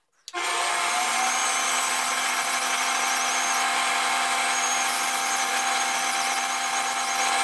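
Small benchtop metal lathe switched on: its motor starts abruptly about a third of a second in with a short rising whine as it spins up, then runs at a steady speed with a constant hum and whine.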